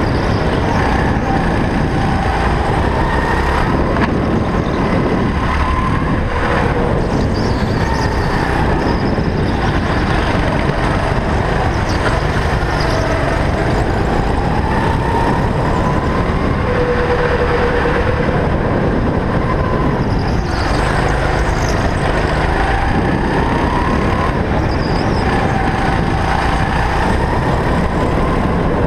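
Go-kart engine heard from the driver's seat, running hard with a dense low rumble, its pitch repeatedly rising and falling as the kart speeds up and slows.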